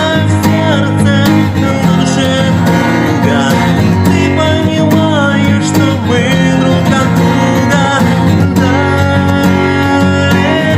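A song sung over acoustic guitar strumming, with the voice gliding between held notes.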